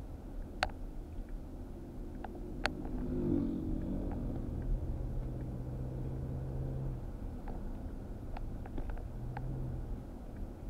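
Car driving on a paved road, heard from inside the cabin: a steady low rumble of engine and tyres, with a steadier low hum from about four to seven seconds in. A few sharp clicks cut through it, the loudest two within the first three seconds.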